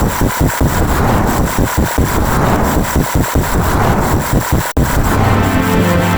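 Loud, harsh electronic sound effect: a dense, rough, noisy drone chopped by irregular stutters. It cuts off sharply about three-quarters of the way through, and steady-toned electronic music takes over.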